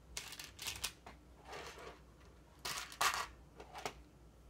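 Small plastic LEGO pieces clicking and rattling as they are handled and picked from a pile, in several short bursts, the loudest about three seconds in.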